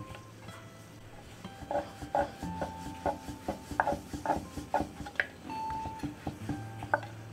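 Wooden rolling pin rolling paratha dough back and forth on a wooden board, with repeated wooden knocks and rubbing as the pin moves, about two a second, starting about a second and a half in.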